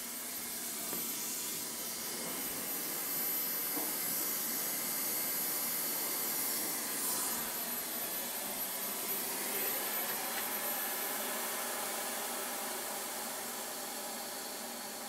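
Steady hiss of compressed air from a shop air hose filling a small inner tube, with air escaping at a leak somewhere in the hose or tube.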